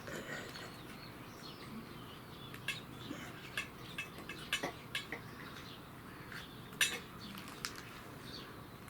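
Scattered light clinks and clicks of a pet food dish as a cat eats from it, the sharpest click about seven seconds in.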